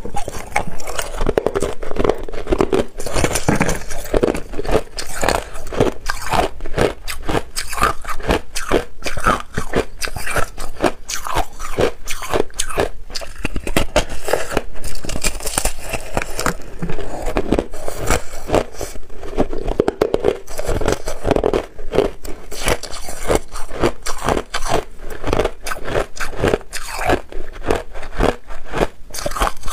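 A person biting and chewing a chunk of hard white ice: close crunching made up of a dense, continuous run of sharp cracks and crackles as the ice breaks between the teeth.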